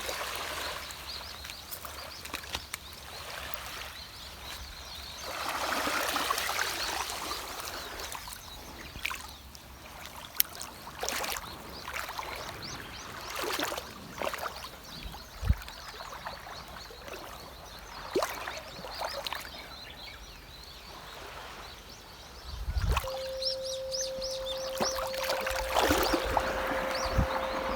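Sea water lapping and splashing in swells, with scattered small splashes. Near the end a steady pure 528 Hz tone comes in over the water sound.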